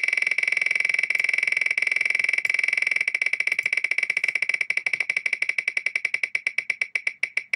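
Digital prize wheel's ticking sound effect as it spins: a fast run of sharp, bright ticks that slow down steadily as the wheel coasts to a stop.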